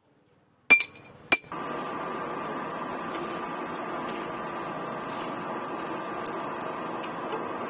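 Two sharp metallic clinks with a ringing tone, steel striking steel, then a steady machine whir with a faint hum starts about a second and a half in and runs on.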